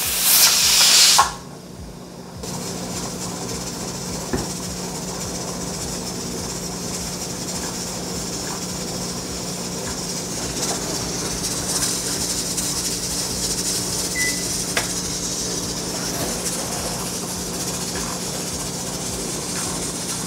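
Presto pressure canner hissing steam: a loud hiss from the open vent pipe for about the first second, then a steadier, softer hiss once the weighted regulator is on and the canner holds about 10 pounds of pressure. A low steady hum runs underneath.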